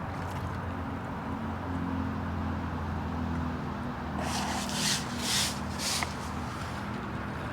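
A steady low engine hum, with three short rustles about four to six seconds in.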